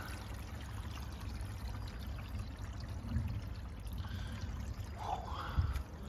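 Water running steadily through a garden pond's pump and filter plumbing, with a soft knock about five and a half seconds in.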